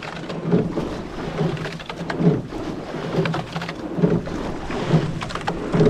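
Double sculling boat under way: the sculls knock in their oarlocks and the blades splash through the water in a steady rhythm, just under one beat a second, over a constant low rumble.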